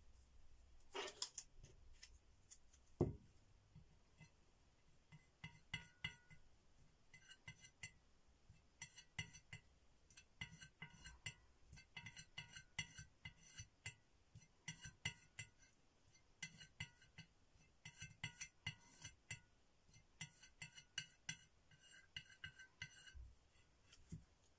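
Faint clinking of a tool against a ceramic plate palette as acrylic paint is mixed on it, in quick clusters about once a second, with one dull knock about three seconds in.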